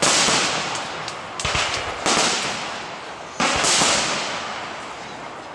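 Aerial firework shells bursting, four loud bangs over a few seconds, each followed by a fading hiss of crackling stars.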